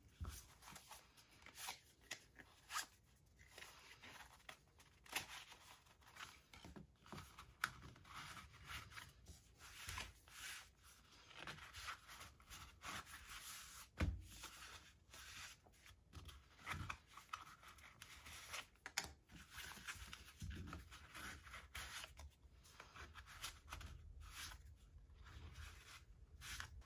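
Rustling and scraping of an oil-finish tin cloth and nylon wallet being handled, with plastic cards slid into its slots, in many short irregular scratches and clicks. A soft knock comes about halfway through.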